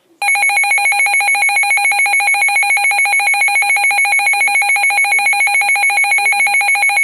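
Weather alert radio's electronic alarm sounding a loud, high-pitched, rapidly pulsing tone that cuts off suddenly near the end, signalling a severe thunderstorm warning.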